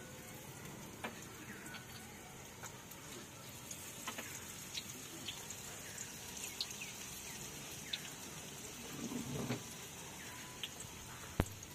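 Mixed-vegetable pakoras deep-frying in a large wok of hot oil: a steady sizzle with many small crackles and pops. A short stretch of clatter comes a little after nine seconds in, and a single sharp knock comes near the end.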